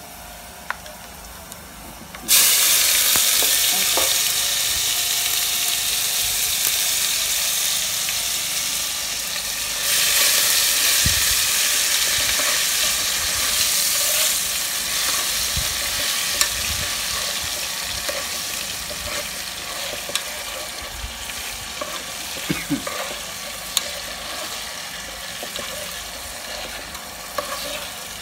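Blended fresh pepper and tomatoes spooned into a pot of hot oil and onions, hitting the oil with a sudden loud sizzle about two seconds in. The sizzle flares up again about ten seconds in and slowly dies down, while a metal spoon clicks now and then against the bowl and pot.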